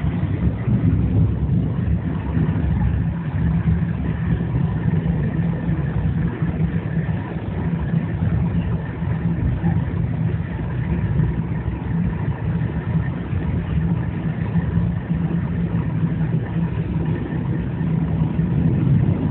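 Steady low rumble of a commuter train running along the track, heard from inside the passenger car.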